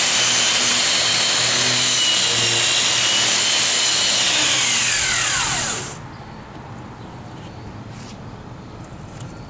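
Corded electric angle grinder grinding rust and old paint off a steel caboose roof: harsh grinding noise over a steady high whine. About five seconds in it is switched off, and the whine falls in pitch as the disc spins down within about a second.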